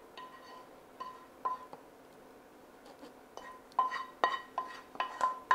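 Irregular clinks of metal kitchenware or glassware, each ringing briefly at the same pitch: a few spaced strikes at first, then a quicker run of them in the last two seconds.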